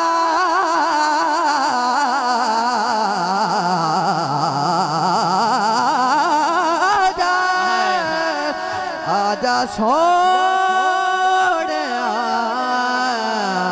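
Male naat reciter singing a Punjabi naat in a long wordless melismatic passage. The voice wavers and slides through ornaments, then holds long steady notes from about the middle on.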